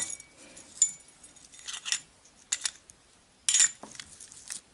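Small stainless steel dishes holding tiny model-ship pulley blocks clinking and knocking together as they are handled and stacked: several separate sharp clinks, each with a brief metallic ring.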